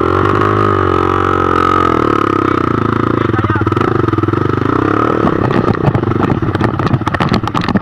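Dirt bike engine revving as the bike pulls away over a rough dirt trail, its pitch rising and falling with the throttle. From about five seconds in, quick knocks and rattles come in as the bike bounces over the ground.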